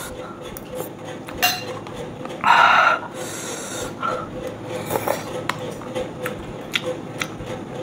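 Cup noodles being eaten: a utensil clicks and taps against the noodle cup several times, with one loud slurp of noodles about two and a half seconds in.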